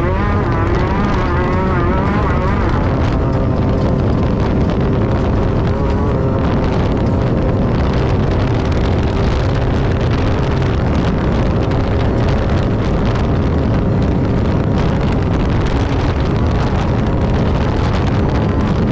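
Class 10 desert racing buggy running at speed: a loud, steady engine drone over a heavy low rumble, with wind noise on the microphone.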